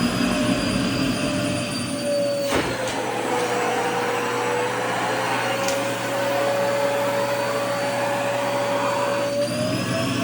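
Vacuum cleaner running steadily, its motor whine dropping in pitch with a click about a quarter of the way in and rising back near the end, as a skirt's fabric is sucked against the nozzle.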